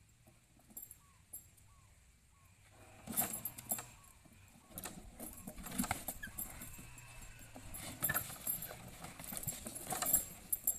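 An elephant playing with hanging rubber tyres: from about three seconds in, scuffing in the dirt with a string of sharp knocks and rattles as the tyres swing and are shoved about. Before that, only a few faint chirps.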